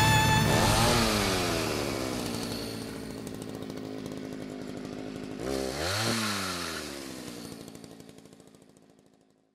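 Chainsaw engine winding down from a high rev soon after the start and idling. About five and a half seconds in it is blipped up and back down, then fades out.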